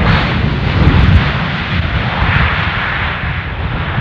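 A jet aircraft passing close by: loud, steady engine noise with a heavy, rough low rumble.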